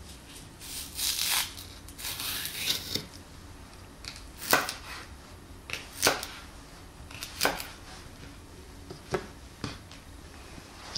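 Chef's knife cutting a green onion on a wooden cutting board. It starts with two longer, rasping slicing strokes, then comes a handful of sharp knocks as the blade meets the board, spaced a second or more apart.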